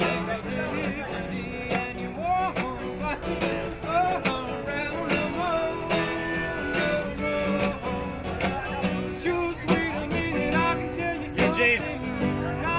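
Background music: a song with singing over guitar, in a country-blues style.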